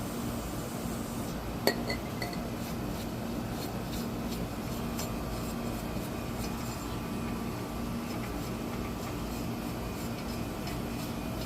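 Light metallic clinks and small clicks of tools and brake parts being handled. A sharp ringing chink comes a little under two seconds in, followed by two fainter pings, all over a steady background hum.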